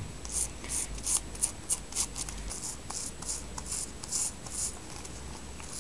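Toothbrush bristles scrubbing primrose leaves in short back-and-forth strokes, about two to three a second, brushing off pests and fungus. The strokes fade out near the end.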